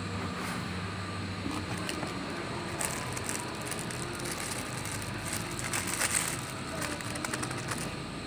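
Crackling, rustling handling noise in the middle of the stretch, over a steady low hum.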